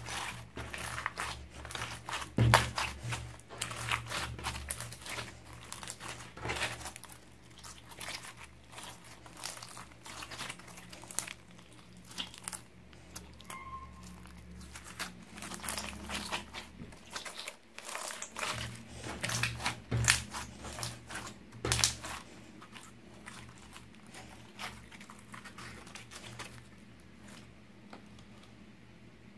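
Hands squeezing and kneading a glossy glitter slime mixed with small foam beads, giving bursts of wet, sticky clicks and crackles. The crackling thins out over the last several seconds as the slime is left alone.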